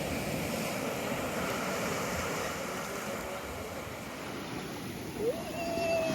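Surf washing on a beach, with wind on the microphone. Near the end, a short tone rises quickly and then holds briefly over the wash.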